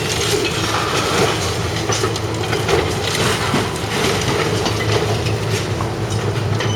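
Electric light-rail train running through the stop, with rail clatter and repeated clicks over a low steady hum.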